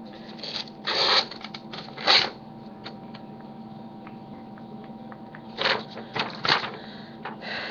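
A sheet of paper rustling and being cut with the large blade of a Swiss Army knife: several short scratchy swishes, about 1 s, 2 s and 5.5–6.5 s in, with small ticks and clicks between.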